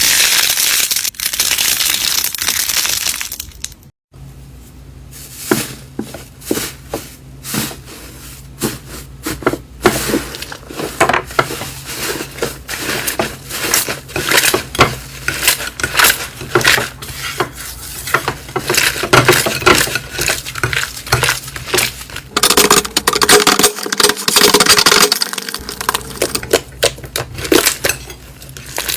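Slime being squeezed and pressed by hand, crackling with many sharp pops and clicks. There are cuts about four seconds in and again after about twenty-two seconds.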